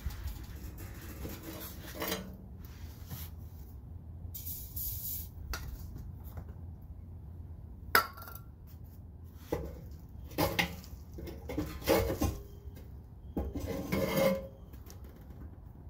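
Work from underneath on the rusty exhaust hangers: a short hiss of silicone spray lube, a sharp knock about eight seconds in, then several bursts of rubbing and scraping near the end as a hanger is worked on.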